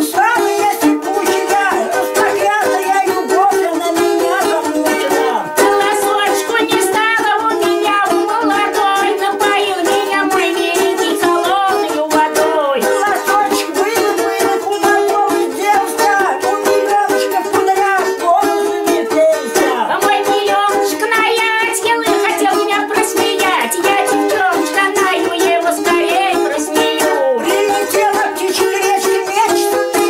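Two balalaikas strummed together in a folk duet, a dense, steady run of fast strummed chords and melody.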